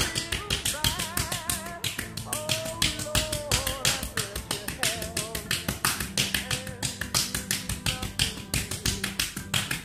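Hands tapping rapidly and rhythmically on a person's bare back, about five taps a second without a break, as a percussive manual treatment for chronic neuropathic pain.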